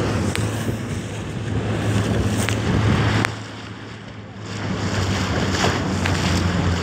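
Motorboat under way on a lake: a steady low engine hum under wind buffeting the microphone and water rushing past, with a few sharp clicks. The wind and water noise drops for about a second a little after the middle, then returns.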